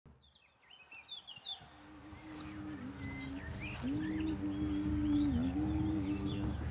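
Birds chirping, then a held, droning musical tone fades in about two seconds in and grows steadily louder, dipping in pitch once or twice over a low pulsing.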